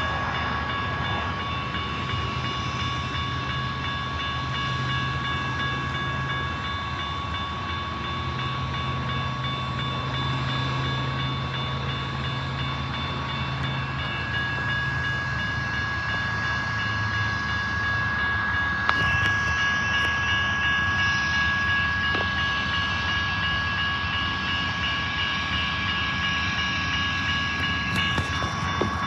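Union Pacific diesel locomotive running, a steady low engine drone under a steady high-pitched whine.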